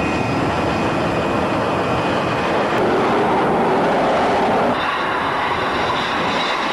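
Jet engines of a MiG-29K fighter running at high power: a steady loud rush with a thin high whine over it, the whine shifting higher about five seconds in.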